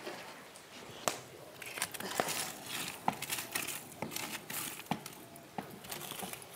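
Handling noise: irregular crinkling with scattered sharp clicks and ticks.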